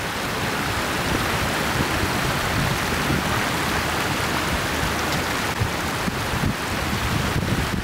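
Steady wash of ocean surf, with wind rumbling on the microphone underneath.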